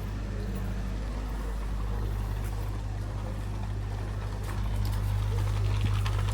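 Engine running steadily with a low, even hum, a little louder about four and a half seconds in.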